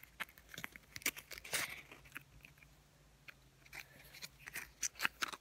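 Slime being squeezed and pressed by hand into a small plastic egg: irregular small crackles, squishes and clicks.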